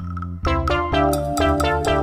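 Background music: a light tune of short, quickly struck notes over a steady low bass.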